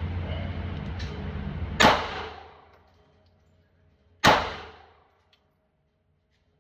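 Two pistol shots about two and a half seconds apart, each a sharp crack with a short echoing tail off the walls of an indoor range.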